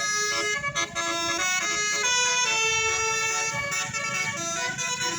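A bus's 'telolet basuri' musical air horn plays a tune of held notes, several pitches sounding together and changing every fraction of a second. A low rumble runs underneath.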